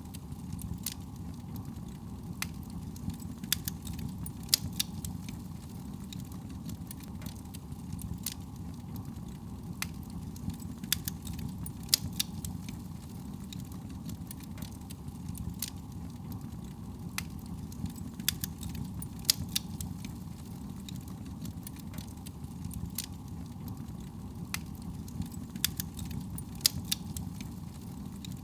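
Fireplace fire crackling, with sharp irregular pops scattered over a steady low rush of soft breeze.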